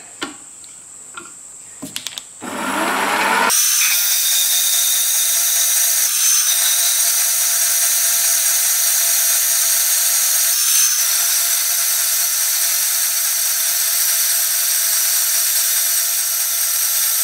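Metalmaster horizontal metal-cutting bandsaw starting about three seconds in, then running steadily as its blade saws a slice off a short piece of round bar stock.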